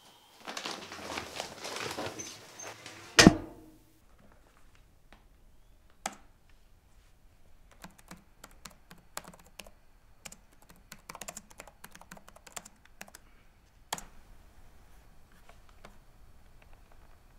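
A rustling noise ending in one loud thunk about three seconds in, then irregular typing on a computer keyboard: single keystrokes and short runs of clicks, some struck harder than others.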